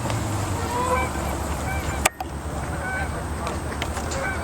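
A flock of Canada geese honking, many short overlapping calls. A single sharp click sounds about two seconds in.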